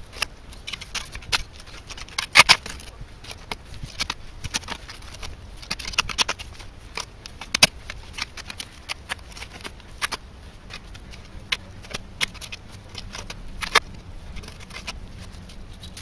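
Steel spade digging in earth: irregular scrapes and knocks of the blade cutting into the soil and lifting it out, with clods dropping onto a heap of dug soil. The sharpest knock comes about two and a half seconds in.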